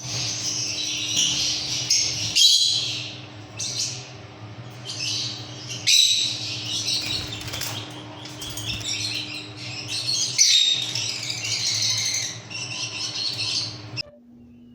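A group of Fischer's lovebirds chattering in a continuous high-pitched twitter over a steady low hum. The chatter breaks off briefly three times and stops shortly before the end.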